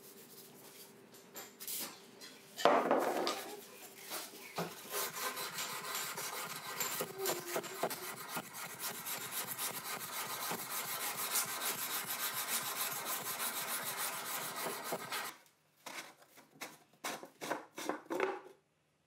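Hand-sanding a hardened steel knife blade with a flat abrasive block: quick, scratchy back-and-forth strokes that stop suddenly about fifteen seconds in. A few short scrapes and clicks follow as a rusty threaded cap is worked loose from a pipe.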